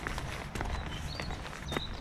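Footsteps of a person walking, about two steps a second, over a low steady rumble, with a few short high chirps from small birds in the second half.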